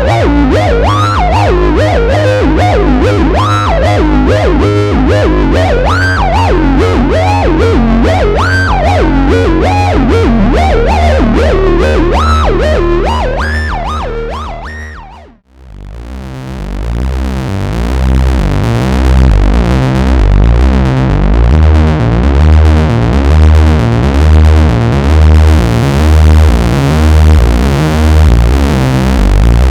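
Moog Source monophonic analog synthesizer playing a fast, distorted lead line of quick notes with gliding pitches, fading out about halfway. It then switches to a new patch: a deep, rhythmic bass pattern with a heavy low end.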